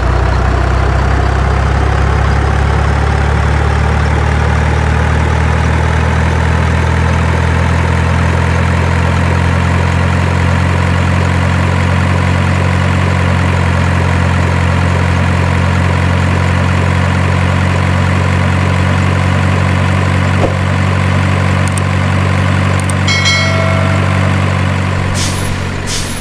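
Truck engine idling steadily with a deep, even hum; it stops abruptly at the end.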